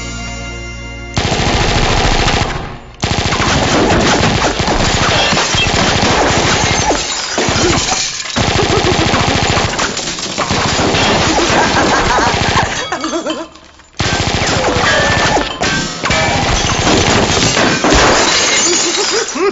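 Music cuts off about a second in. Loud, rapid automatic gunfire follows, in long stretches broken by short pauses about three, eight and thirteen seconds in.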